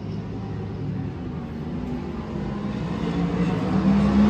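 Racing superbike engines running at speed on the circuit. The sound grows steadily louder, and an engine note strengthens and rises toward the end as a bike approaches under acceleration.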